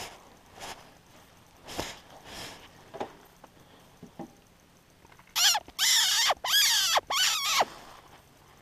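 Predator squeak call blown in four loud, wavering squeals over about two seconds, imitating a mouse in distress to draw in coyotes. A few faint rustles come before it.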